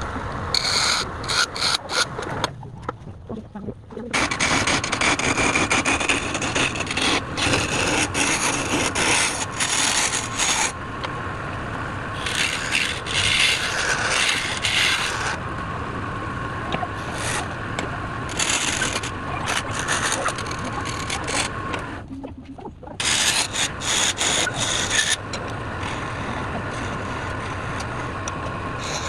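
Wood lathe running with a low steady hum while a tool scrapes the spinning workpiece in long noisy bursts, easing off briefly a few seconds in and again near the end.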